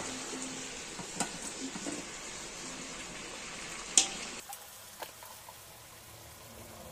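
Chicken gizzard and leg pieces sizzling in a black iron wok while a slotted metal spatula stirs them. A few scrapes and clinks of the spatula against the pan can be heard, the sharpest about four seconds in. Shortly after that, the sizzle drops to a quieter level.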